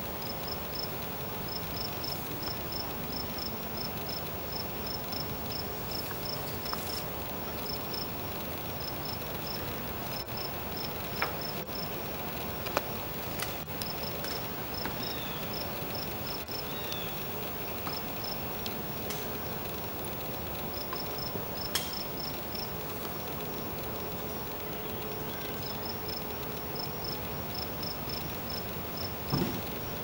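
Cricket chirping: runs of short, high-pitched pulses repeating over a steady hiss, with a few brief clicks.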